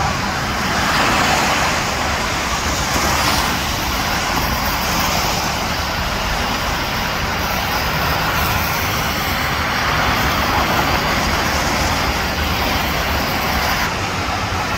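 Steady noise of freeway traffic, with tyres on wet pavement and engines of slow, dense traffic blending into one continuous sound that swells a little now and then.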